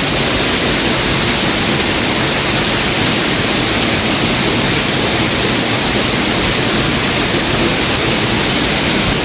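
Waterfall heard from close by: a loud, steady, even rush of falling water.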